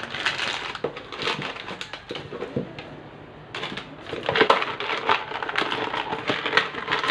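A spoon stirring and scraping through thick cake batter in a bowl as almonds are mixed in, in irregular clicks and scrapes that thin out for a second or so midway, then pick up again.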